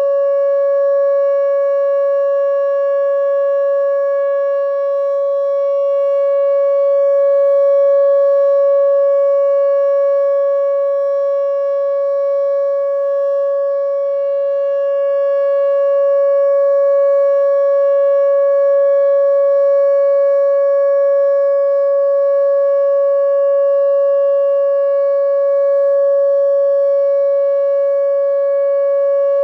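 Whelen WPS-2910 electronic outdoor warning siren sounding its Alert signal: one steady, loud tone that holds the same pitch throughout.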